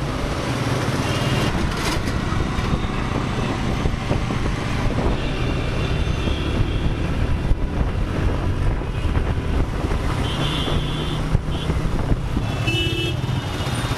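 Wind and road noise from riding a two-wheeler through city traffic, its engine humming steadily under the rush of air. A couple of short horn beeps sound from the traffic near the end.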